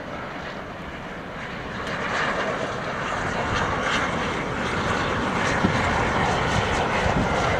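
LNER A4 Pacific steam locomotive, a three-cylinder engine, approaching at speed with its train. Its steady roar of exhaust and running gear grows louder as it draws nearer.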